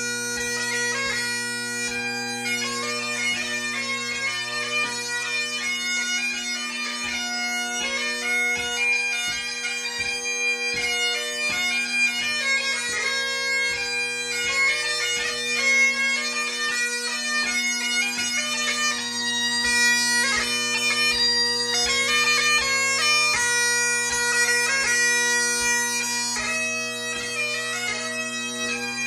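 Great Highland bagpipe played solo: the drones hold a steady low note while the chanter plays a tune above them.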